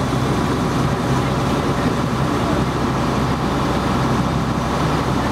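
Boat engine running steadily: a low, even drone with a constant hum underneath.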